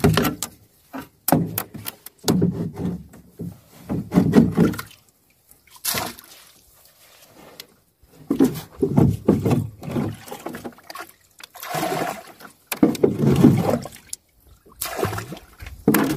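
Water being bailed out of a leaking canoe: a hand bailer scoops bilge water from the hull and tips it over the side, again and again, each scoop a short splashy pour, with a brief lull about six seconds in.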